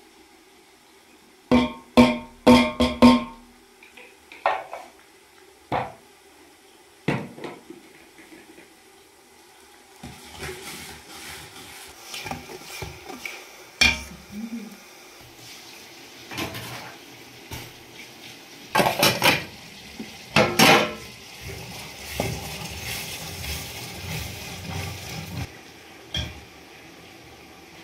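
Metal pots and dishes clanking. A quick run of ringing knocks comes about two seconds in, then scattered clatter, with a steady hiss through the middle that stops near the end.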